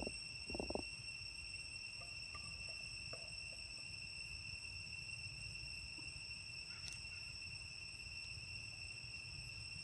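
Steady high-pitched drone of insects, one unchanging tone, over a low rumble, with a faint click about two-thirds of the way through.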